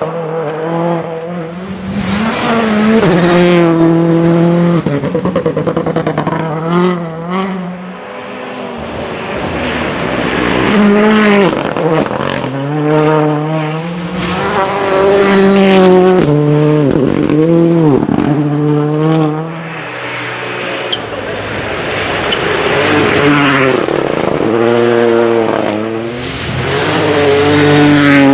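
Rally cars driven flat out past the microphone, engines revving high and dropping in pitch at gear changes, with several pitch sweeps downward as cars pass by.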